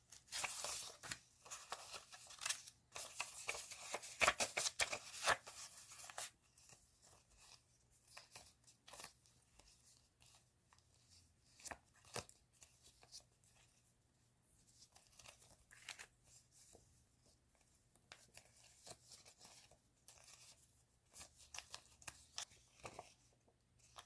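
Paper and plastic packaging being torn and handled, with dense rustling for about the first six seconds, then scattered small rustles and clicks.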